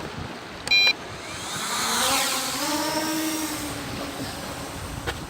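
A short electronic beep just under a second in. Then a motor vehicle's engine swells, rises a little in pitch and fades over about two seconds, as it drives past.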